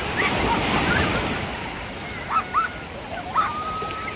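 Surf breaking and washing up a sandy beach, with distant voices of people in the water and a few short high cries rising above the waves.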